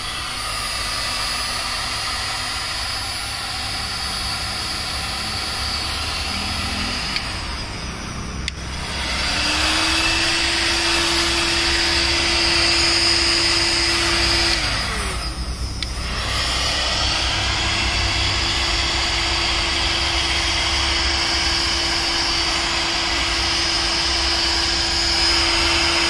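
Black+Decker heat gun blowing hot air, its fan motor whining steadily. About a third of the way in it steps up louder and higher. Just past halfway the whine glides down and dips briefly, then comes back up and holds.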